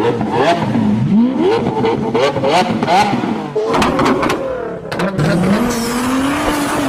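Car engine revving hard, its pitch sweeping up and down again and again with sharp cracks between the revs, then holding a slowly rising high rev near the end.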